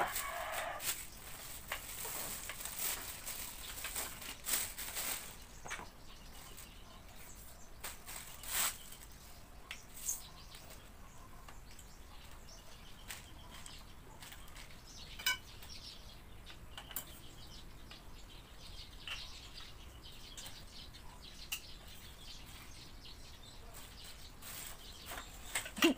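Plastic packaging rustling, with scattered light clicks and knocks as the tubular frame parts of a baby rocker are unwrapped and handled. The rustling is busiest in the first few seconds, with a few louder knocks later.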